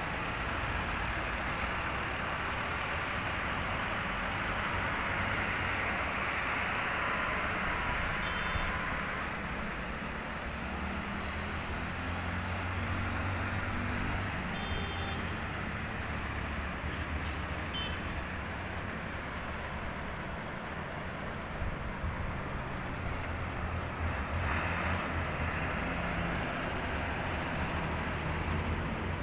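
Steady town traffic ambience: vehicles running on the roads below, with a low rumble and a few short high beeps.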